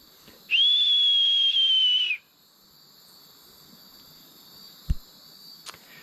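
A person whistling an imitation of a lesser sooty owl's call: one long, nearly level whistle, falling slightly and lasting about a second and a half. It is followed by faint night background and a short thump about five seconds in.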